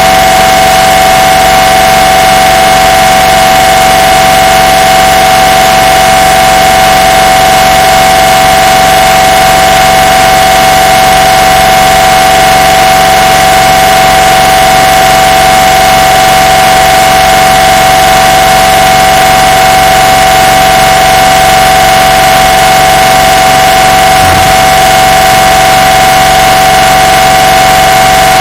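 MRI scanner's gradient-coil noise: a steady, unchanging tone with a harsh hiss over it. It is boosted to full loudness and distorted.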